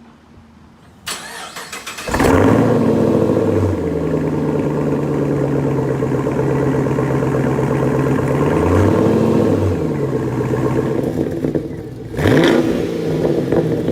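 A 2009 Pontiac G8 GT's 6.0-litre V8, breathing through a Corsa sport cat-back exhaust and a Volant cold air intake, is cranked about a second in and catches a second later with a loud start-up flare, then settles into a steady idle. There is one quick rev near the end.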